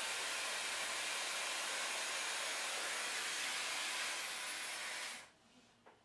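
Dyson Airwrap with its smoothing brush attachment blowing air, a steady rush, while brushing through hair; the airflow cuts off about five seconds in.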